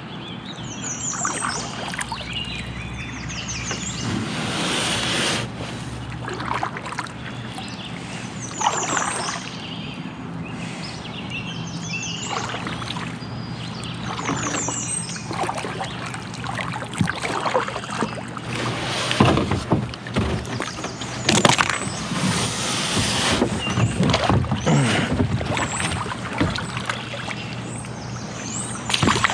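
Kayak paddle strokes splashing and water sloshing against the hull as the kayak is paddled in fast. A bird repeats a short, high, descending trill several times.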